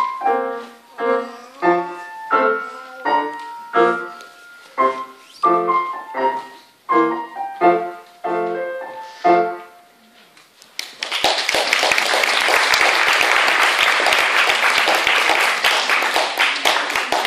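Grand piano played, chords struck about twice a second, each ringing and fading, until the piece ends about ten seconds in. An audience then applauds steadily.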